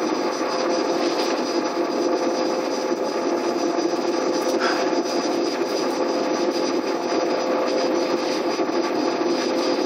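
IBM 7133-D40 SSA disk enclosure running with its drives spun up: a loud, steady whir of cooling fans and spinning hard disks, with a constant hum and a high whine.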